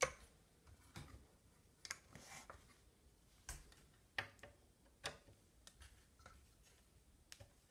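Faint, irregular clicks and taps as a long screwdriver and hands work at the screws on a Kirby Heritage II vacuum's metal housing.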